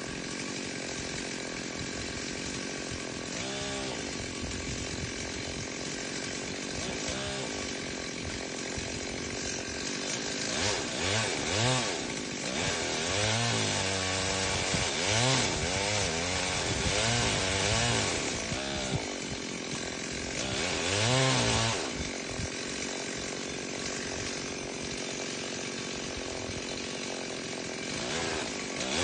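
Two-stroke chainsaw idling with a couple of brief throttle blips, then revved up and down repeatedly for about twelve seconds while cutting into the tree, dropping back to idle near the end.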